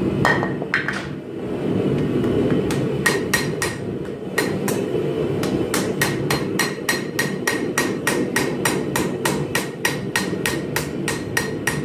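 Hand hammer striking a red-hot Damascus steel knife blade on an anvil, forging in the bevels. There are two blows in the first second, then from about three seconds in a steady run of strikes at about three a second, over a steady low rush of noise.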